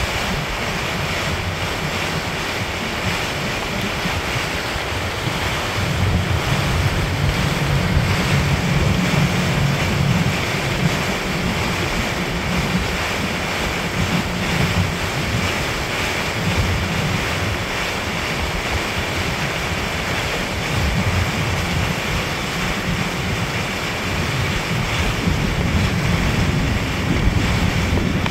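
Wind buffeting the microphone over the steady rush of water from a motorboat under way through choppy water, its wake churning alongside. The low wind rumble swells twice, about a third of the way in and again near the end.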